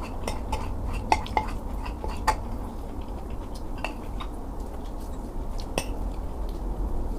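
Eating bibimbap: a spoon clicks sharply against a bowl about nine times at irregular intervals, most often in the first half, over a steady low rumble.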